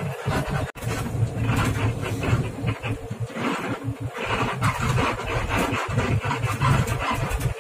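Coach bus running on the road: uneven engine and road noise with heavy low rumble, cut off for an instant just under a second in.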